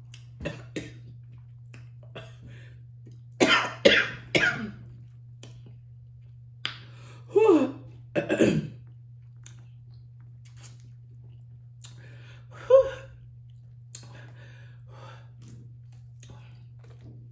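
A woman coughing three times in quick succession about three and a half seconds in, then two short throat sounds sliding down in pitch around eight seconds, as hot, spicy seafood-boil seasoning catches her throat. Faint clicks of snow crab shell being picked apart come in between.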